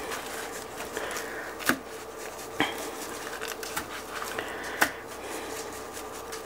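Salt, pepper and garlic seasoning shaken from a shaker bottle over raw chicken thighs on an aluminum sheet pan: a light patter of taps, with three louder sharp clicks near the middle, over a faint steady hum.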